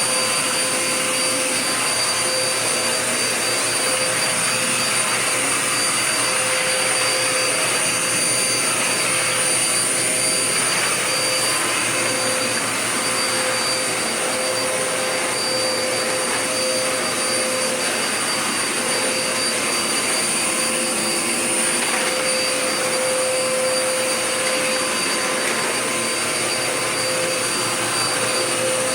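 Dirt Devil Power Max vacuum cleaner running steadily, a constant rushing of air with a steady motor whine over it.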